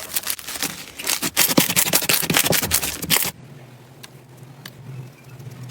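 Slime being pressed and squished, giving a dense run of sharp crackling and popping clicks. It cuts off abruptly about three seconds in, leaving a quieter low hum with a few soft clicks.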